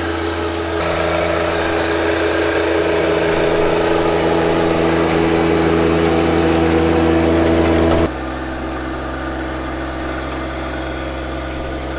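John Deere 1025R compact tractor's three-cylinder diesel engine running steadily while it drives a rear-mounted King Kutter rototiller through the soil. About eight seconds in the sound drops suddenly to a lower, steadier level.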